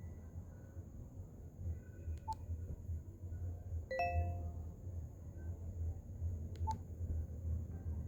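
BlackBerry Curve 9220's speaker playing a sparse ringtone. A single bell-like chime with several ringing tones sounds about four seconds in, and two faint short clicks come before and after it. A steady low hum runs underneath.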